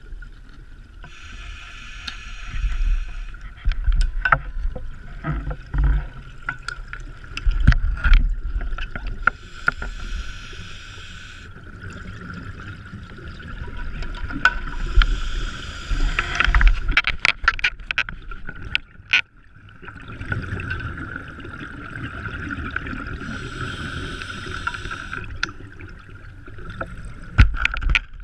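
Scuba diver breathing through a regulator underwater: four hissing inhales a few seconds apart with bubbling exhales between them, scattered clicks and knocks, and a steady faint whine throughout.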